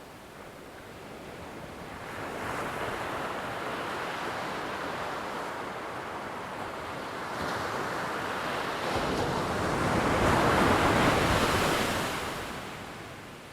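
Ocean surf: a wave's wash swells up over several seconds, is loudest near the end, then fades away.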